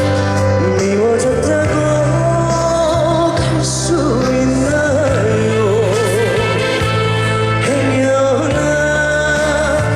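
Male singer performing a slow, emotional song live over instrumental accompaniment, his voice carrying a wide vibrato on held notes above sustained bass notes.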